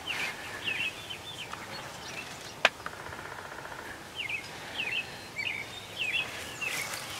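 A songbird sings two bouts of quick repeated high notes, a few seconds apart, over steady outdoor background noise. A single sharp click sounds between the bouts and is the loudest thing heard.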